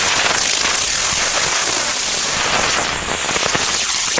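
Explode Smokebirds rising smoke whirls spinning on the ground with a steady loud hiss, spraying sparks and coloured smoke. They stay on the ground instead of lifting off.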